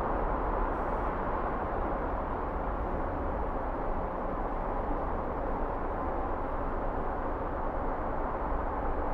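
Steady background noise of city traffic, an even hum with no distinct events.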